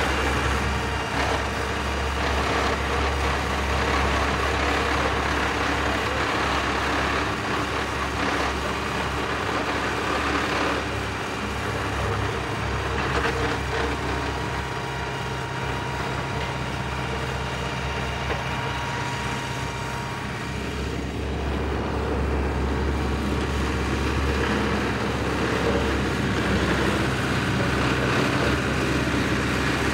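Four-wheel-drive vibratory roller running: a steady diesel engine drone with a strong low hum underneath, shifting a little in pitch now and then.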